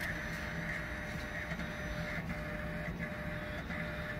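Da Vinci Super 3D printer's extruder motor running steadily as it draws the filament back out during automatic unload, with a few faint ticks.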